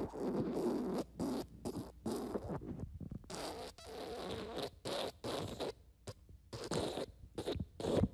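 Wet fart sound effects: a string of irregular, sputtering bursts, some short and some about a second long, with brief gaps between them.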